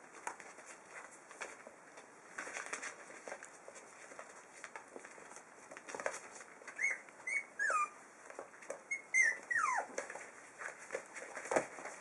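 Five-week-old puppies whimpering: a few short high whines at about seven seconds, then a longer falling whine near ten seconds. Between them come light scratching and rustling of paws on newspaper and floor.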